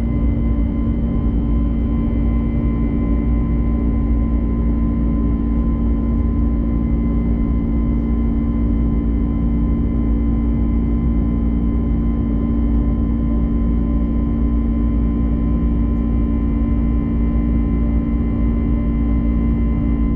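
Steady cabin drone of a jet airliner in flight: a deep rumble with several constant humming tones from the engines over it, unchanging throughout.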